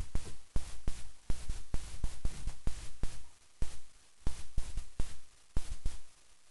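Camera shutters clicking in quick, irregular runs, several clicks a second, thinning out into separate bursts after about three seconds in.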